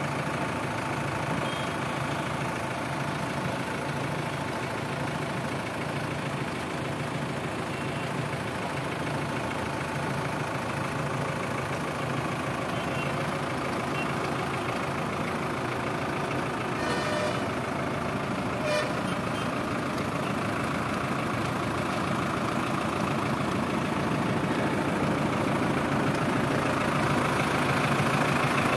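Tractor diesel engine running steadily behind a PTO-driven wire-rope winch, with a couple of short, sharp sounds about two-thirds of the way through.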